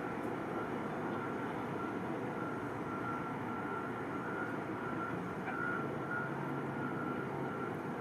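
Heavy vehicle's reversing alarm beeping over and over, one high tone, over the steady rumble of its diesel engine and traffic.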